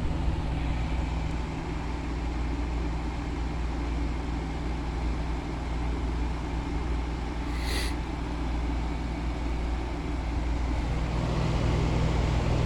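GE Fashionette 6000 window air conditioner running: steady fan noise over a low hum. About eleven seconds in the hum grows stronger and a little louder, as the compressor kicks on. A brief high sound comes near eight seconds in.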